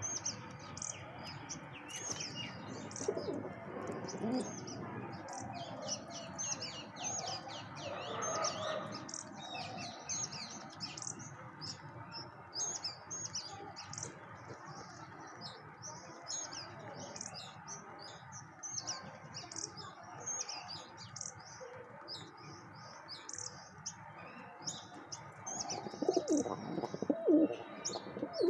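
A flock of birds chirping and chattering continuously in quick, high-pitched notes, as bank mynas and pigeons gather at food. A few louder, lower calls come near the end.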